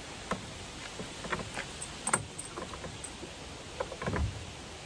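Scattered plastic clicks and light knocks from handling the battery pack of an ePropulsion electric outboard as it is taken off the motor, with a dull thump about four seconds in.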